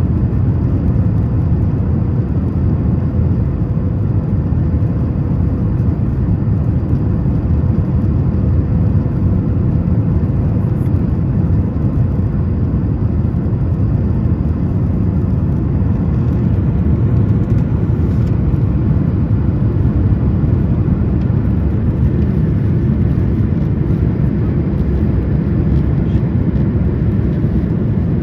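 Steady in-flight cabin noise of a Boeing 737 MAX 9 during descent: a constant low rush of airflow and the CFM LEAP-1B engines, with a faint steady hum.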